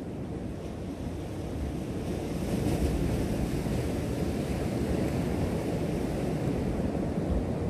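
Ocean surf washing against a rock shelf, with wind buffeting the microphone; the wash grows louder about two seconds in.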